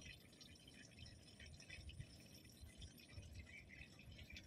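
Near silence: faint outdoor background with a low rumble.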